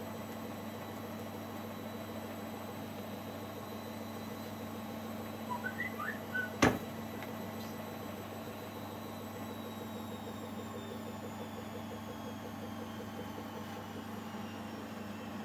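A steady low hum with a faint high whine behind it, and one sharp knock about six and a half seconds in as the plastic blender jug is set back down on its base; a few faint short squeaks come just before the knock.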